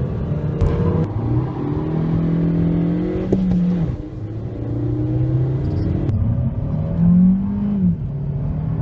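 Stock exhaust of a 2021 Toyota Corolla's 1.2-litre turbocharged four-cylinder petrol engine, revving up and down several times: the pitch climbs, holds, then drops sharply about three and a half, six and eight seconds in.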